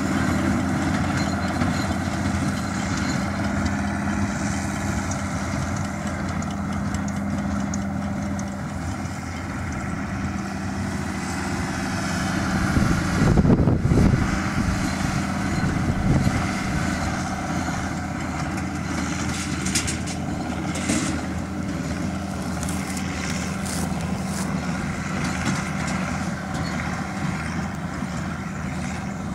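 Fiat 880/5 DT tractor's diesel engine running steadily under load while driving a Claas small square baler through barley straw. A brief louder rumble comes about halfway through, and a few short clicks later on.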